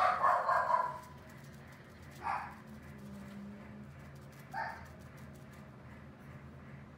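An animal calling three times: one longer call at the start, then two short calls about two seconds apart.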